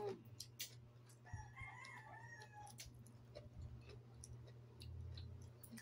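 A rooster crowing once, starting about a second in and lasting about a second and a half, faint under scattered small clicks from chewing sea grapes.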